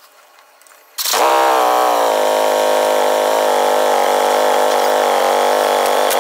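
Touring motorcycle engine starting about a second in. It settles quickly from a brief high rev into a steady idle.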